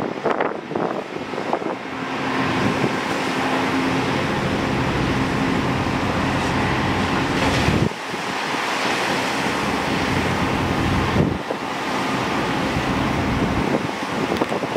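Caterpillar 390F L excavator's diesel engine running under load as it hoists a clamshell dredging bucket out of the water, with water splashing and pouring off the bucket. The engine note settles into a steady hum about two seconds in.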